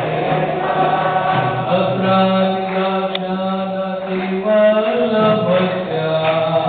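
Devotional chanting, sung in long held notes that step up and down in pitch.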